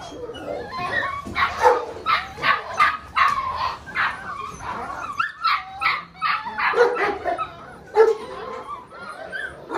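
A litter of six-week-old Belgian Malinois puppies yapping over one another in a near-constant chorus of short, high-pitched calls, with a brief lull about five seconds in.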